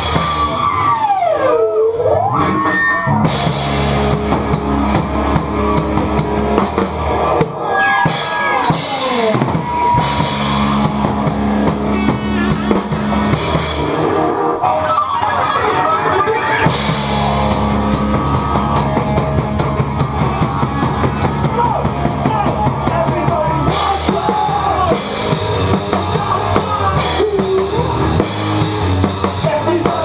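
Rock band playing live, loud, with the drum kit close and heavy in the mix: kick, snare and crashing cymbals. Electric guitar is under the drums, with swooping pitch slides now and then.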